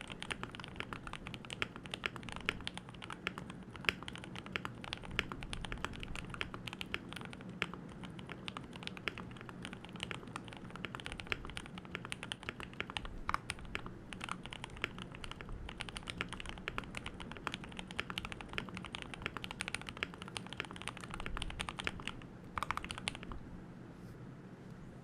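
Continuous typing on a Keychron K2 V2 mechanical keyboard with lubed Gateron Milky Yellow Pro linear switches and stock keycaps, a quick run of keystrokes that stops near the end.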